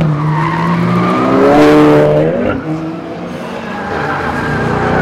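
Cars accelerating out of a track corner one after another: a SEAT Leon's engine revs up with a rising pitch about one and a half seconds in, then a Mercedes C63 AMG's 6.2-litre V8 builds as it comes through the bend.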